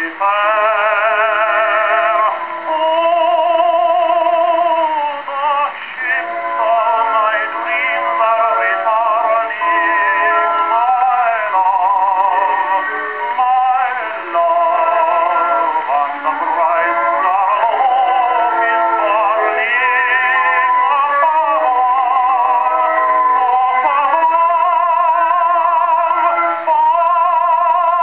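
Victor Victrola VV-VI acoustic phonograph playing a 78 rpm record of a tenor singing with vibrato, the sound thin and narrow, with no deep bass or high treble.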